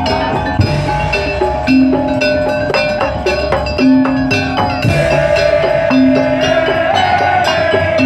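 Madurese daul music: a loud ensemble of drums and percussion beating densely under a sustained, wavering melody line, with a low note repeating about every two seconds.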